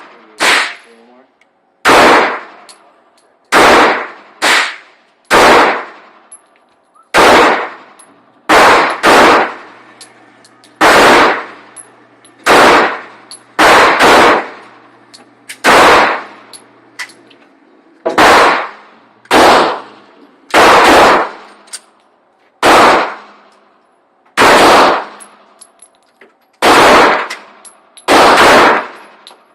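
Glock 30 pistol in .45 ACP fired in slow, deliberate single shots: about twenty loud reports, irregularly spaced one to two seconds apart, with a slightly longer pause a little past the middle.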